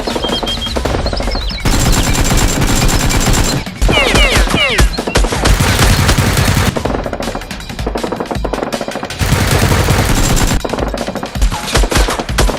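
Rapid machine-gun fire sound effects in sustained bursts, with a cluster of quick whistling glides about four seconds in.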